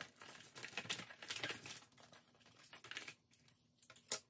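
Plastic packaging crinkling and a clear acrylic stamping plate being handled, with light clicks and taps against the platform. The rustling and clicking thin out after about three seconds, and a single sharp click comes near the end.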